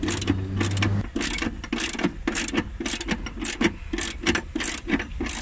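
Socket ratchet on an extension clicking in a steady run, about four clicks a second, as it loosens the battery hold-down bracket bolt.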